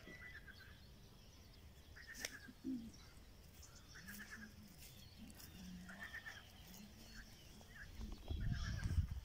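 Small birds chirping in short bursts around a pond, with a faint low drawn-out animal call through the middle and wind rumbling on the microphone near the end.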